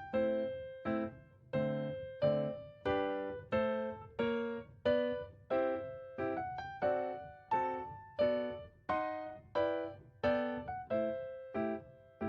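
Background piano music: chords struck roughly every 0.7 seconds, each fading before the next.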